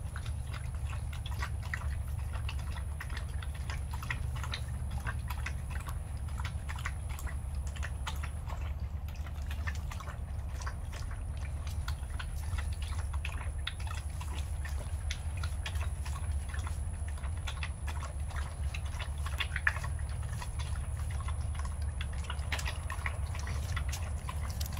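Two dogs lapping milk from a steel bowl: a quick, irregular run of wet tongue clicks and slurps over a steady low hum.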